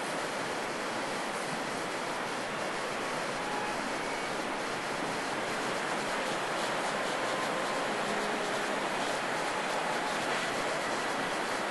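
Steady rush of a fast-flowing river, an even hiss of water.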